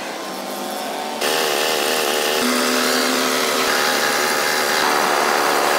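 An air compressor running steadily. About a second in, the loud, even hiss of a compressed-air paint spray gun starts suddenly as it sprays paint, and keeps on steadily.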